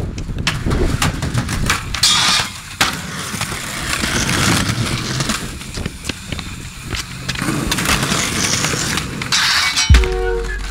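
Skateboard wheels rolling on concrete with sharp clacks of the board, and two longer scrapes about two seconds in and near the end, like a board sliding or grinding. A heavy thump and music come in at the very end.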